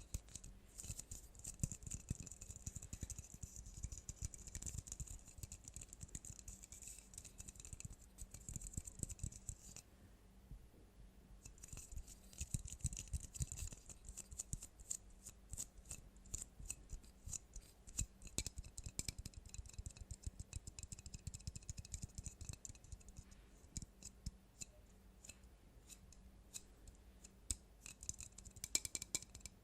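Quick, irregular tapping and clicking from fingers working on small objects close to the microphone, with a crisp hissy edge and a short pause about ten seconds in.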